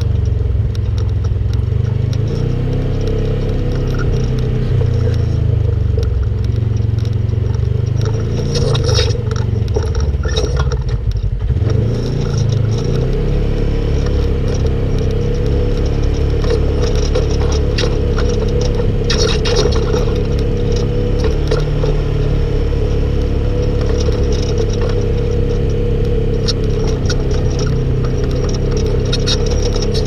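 Polaris RZR RS1 side-by-side's parallel-twin engine running under way, its pitch rising and falling with the throttle for the first ten seconds or so and dropping briefly about eleven seconds in before holding steady. Scattered rattles and clicks from the machine sound over the engine.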